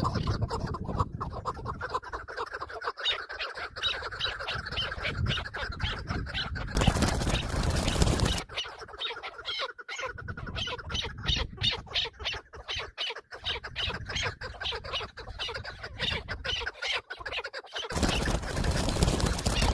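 Chukar partridge calling: rapid, repeated clucking notes, several a second, going on throughout. Two louder bursts of rustling noise cut in, one in the middle and one near the end.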